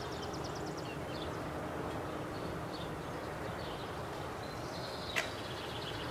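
Outdoor background noise with a bird's rapid high trill in the first second and a few scattered short chirps after it, and a single sharp click about five seconds in. The table saw is not running.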